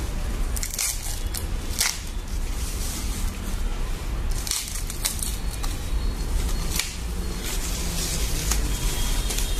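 Plastic and foam packing wrap being pulled and peeled off a soundbar, rustling and crinkling in irregular sharp crackles over a steady low hum.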